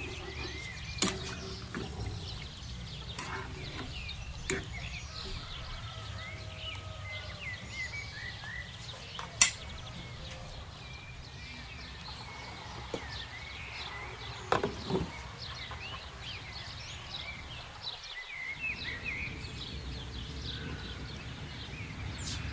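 Small birds chirping steadily over a low hum, with a few sharp knocks, the loudest about nine seconds in.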